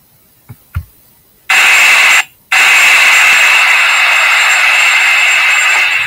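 Two soft clicks, then a loud, steady rushing noise with a high whine from the playing clip, starting suddenly about a second and a half in. It cuts out briefly about two seconds in and comes back.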